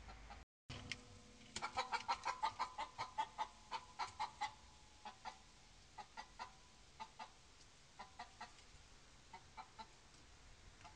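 A hen clucking in alarm inside her coop with a bobcat at the wire: a fast run of clucks, about four or five a second, that slows to scattered clucks in twos and threes.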